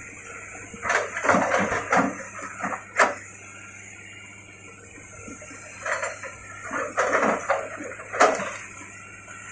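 Crawler excavator's diesel engine running steadily, with bursts of crunching and clanking as its bucket digs and drags through soil and brush, including a sharp knock about three seconds in and another near the end.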